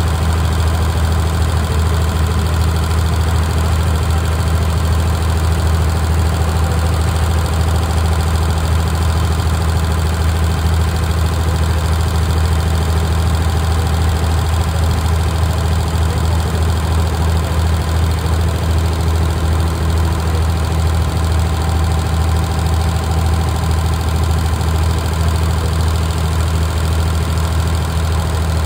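Boat engine running steadily under way, a loud constant low drone.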